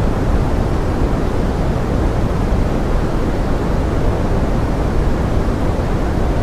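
Steady pink noise: an even, unbroken hiss, heaviest in the low end, with no separate drops or other events.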